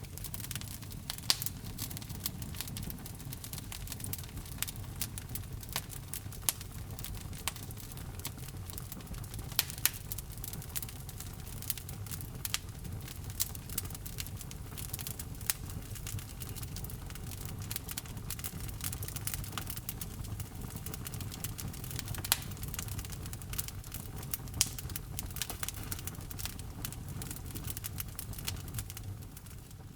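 Wood fire burning in a fireplace, crackling with irregular sharp pops and snaps over a steady low rumble of flames. It fades out at the very end.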